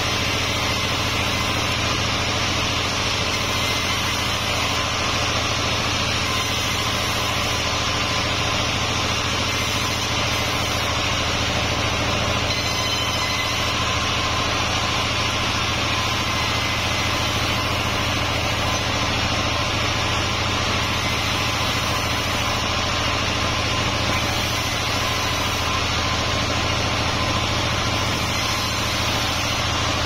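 Table-type band sawmill running steadily as it saws boards of wadang wood: an even motor hum with a hiss over it and no break or change.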